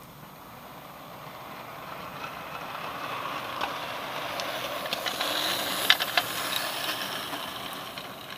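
Model railway train, a steam locomotive hauling coaches, running along the track. Its whirr and rattle build as it approaches, peak as it passes close with a few sharp clicks, then fade near the end.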